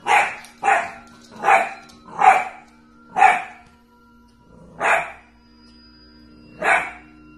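English bulldog puppy barking: seven short, sharp barks, quick at first and then more spaced out, toward the end about every two seconds.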